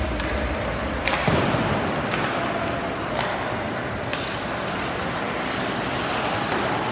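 Ice hockey rink sound: a steady arena hum with sharp knocks about once a second through the first four seconds, the strikes of pucks and sticks on the ice.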